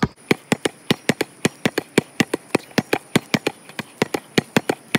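A basketball dribbled hard and low on a concrete court in a pound-and-crossover drill: a fast, even run of sharp bounces, about six a second.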